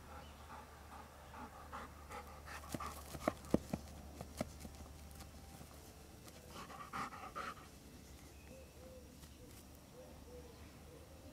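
A dog panting, with a cluster of sharp scratches and clicks a few seconds in and another short scraping burst around the middle as it digs at the lawn soil with its front paws.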